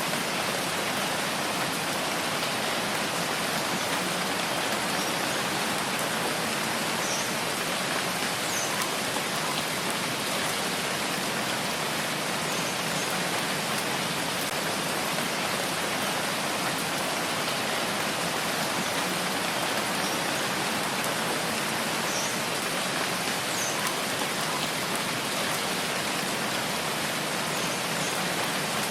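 Steady rain falling, a dense even hiss with scattered faint drip sounds.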